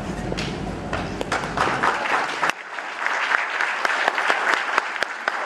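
Audience applauding, the clapping swelling about a second in and carrying on steadily.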